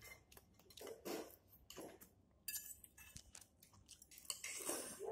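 Forks and spoons clinking and scraping on ceramic plates while instant fried noodles and rice are eaten, with faint chewing: scattered short clicks, and a longer, louder noisy sound near the end.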